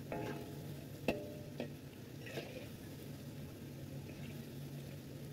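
Battered cauliflower florets deep-frying in a wok of hot oil, a steady bubbling sizzle, with a few light clicks of the spatula against the wok, the sharpest about a second in.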